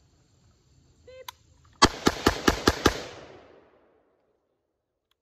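A short beep, then six rapid semi-automatic shots from an M14A rifle in 7.62 NATO (.308), fired about a fifth of a second apart (a Bill drill). Each loud crack is followed by an echo that fades away.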